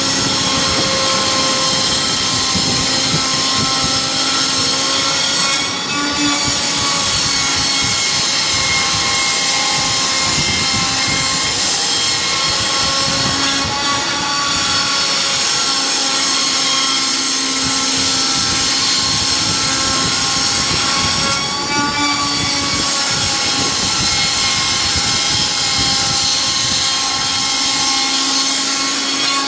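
Large CNC router's spindle running with a steady, high multi-tone whine, dipping briefly about every eight seconds.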